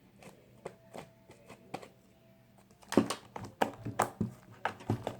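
Slime being squeezed and handled by hand: a run of small sticky clicks and pops, getting denser and louder about three seconds in.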